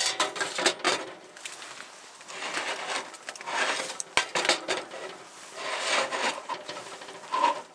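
Sheet metal scraping and clanking as a stainless water tank is shifted around a wood stove's stovepipe, with a few sharp knocks among the rubbing.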